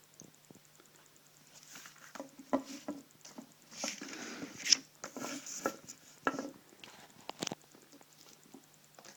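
Handling noise from a folding tactical knife being worked in the hands: a run of clicks and scrapes, with the sharpest clicks about halfway through and near the end. The blade is stiff in its pivot.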